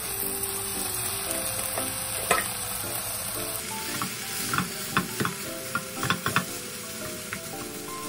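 Kimchi sizzling in a hot frying pan as it is stirred with a silicone spatula. From about halfway, cooked rice is broken up and mixed in, with several sharp knocks and scrapes of the spatulas against the pan. Soft background music plays underneath.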